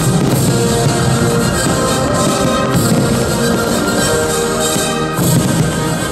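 Loud orchestral music with brass.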